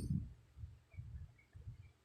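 A sleeping woman's snore trailing off in the first moment, then a lull between snores with a few faint, low puffs of breath.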